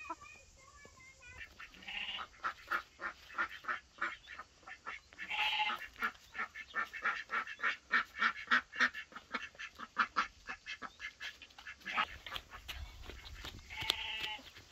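Farmyard poultry calling: a quick run of short calls, about three or four a second, with a longer, drawn-out call about five seconds in and another near the end.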